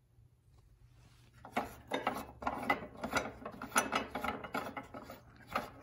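A plastic thumb knob being turned off its threaded stud by hand, with the steel spanner wrenches it holds against the table saw's sheet-metal underside rattling and scraping. It begins about a second and a half in, as a run of irregular ratchety clicks, several a second.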